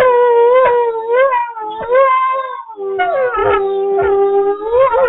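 Gray wolves howling in chorus: long held notes that bend up and down in pitch, with a second, lower howl joining about three seconds in.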